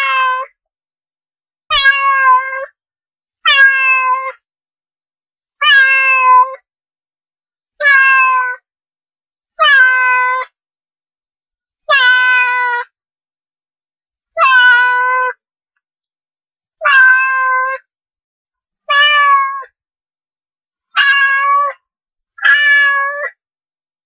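A domestic cat meowing over and over: about a dozen meows, each under a second long and roughly two seconds apart, each with a slight fall in pitch and silence between.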